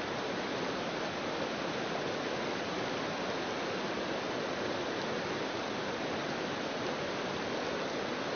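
Whitewater rapids of a slalom canoe course rushing steadily.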